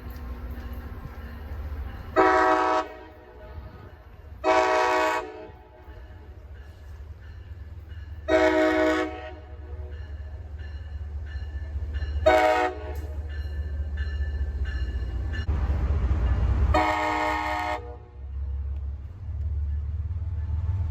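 A train's air horn sounding five separate blasts, the fourth one short and the last the longest, over a steady low rumble that grows heaviest around the final blast.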